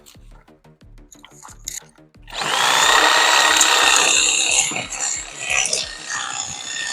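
Background music with a steady beat. About two seconds in, a DeWalt corded reciprocating saw starts up and cuts through an inch-and-a-half hedge branch, its motor running loudly with a high whine. It eases slightly and carries on unevenly near the end.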